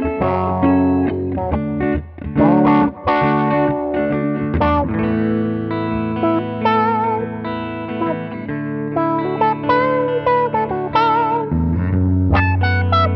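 Two electric guitars jamming together. For the first few seconds there are strummed chords; then come sustained notes and a lead line with wavering vibrato over a steady low note.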